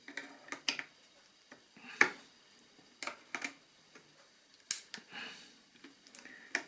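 Sharp clicks and light knocks from the plastic parts of a small portable radio being handled during disassembly, about eight in all, the loudest about two seconds in.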